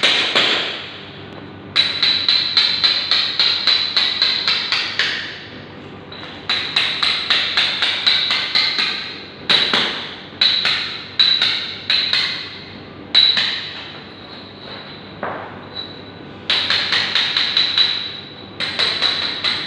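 Hammer striking ceramic tiles in quick runs of sharp, ringing blows, several a second, with short pauses between the runs.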